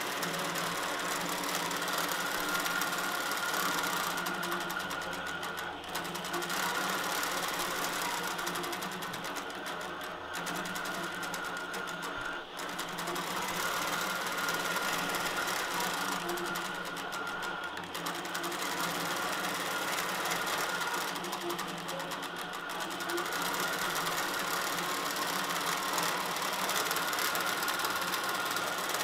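Innova longarm quilting machine stitching steadily on its own under the autopilot, the head running over the quilt, with a high whine that drops out and comes back every few seconds.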